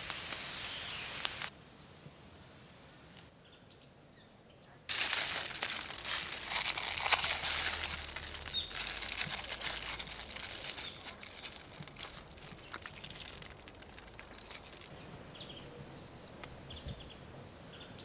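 Rain falling, then a sudden loud stretch of close, dense crackling and rustling about five seconds in that fades out over the next several seconds, then small birds chirping near the end.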